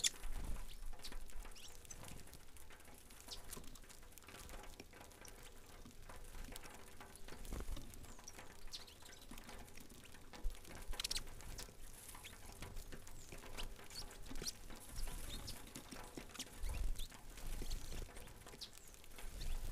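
A flock of saffron finches feeding on grain on a wooden platform feeder: a scatter of small pecking taps and scuffles on the board, with short high chirps now and then.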